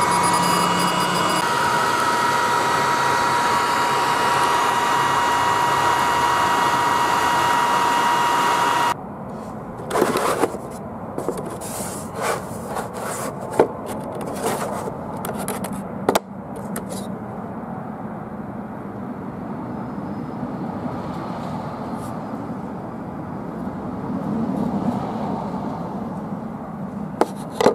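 xTool D1 Pro 20W diode laser engraver running: a steady whirr with a high, constant whine from the laser head's fan and motors, which cuts off abruptly about nine seconds in as the job ends. After that come scattered clicks, taps and rubbing as the cut board piece is handled and lifted off the honeycomb bed.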